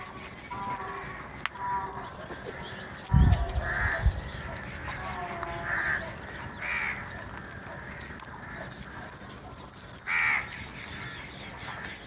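House crows cawing: a few short, separate caws, the loudest near the end, over fainter calls. About three seconds in there is a loud low thump that rumbles for about a second.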